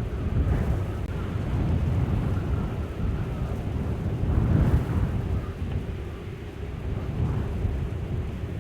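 A continuous low rumbling noise that swells to its loudest about halfway through, then eases off.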